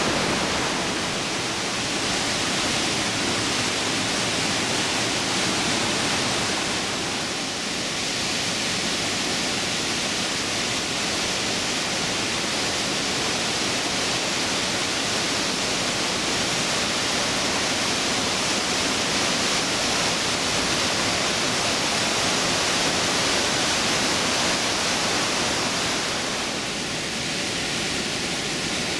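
Steady rushing of the Trümmelbach Falls, a glacier-fed waterfall pouring through a narrow rock gorge.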